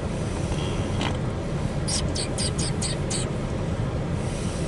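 Loaded CSX coal train's hopper cars rolling past, heard from inside a car as a steady low rumble. About two seconds in comes a quick run of six short hisses.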